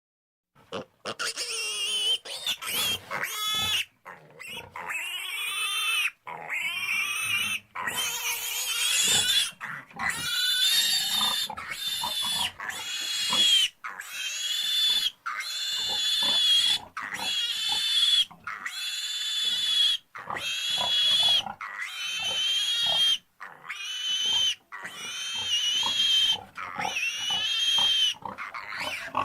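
Pig squealing over and over: a long run of high-pitched squeals, each lasting about a second and rising and falling in pitch, one every second or two.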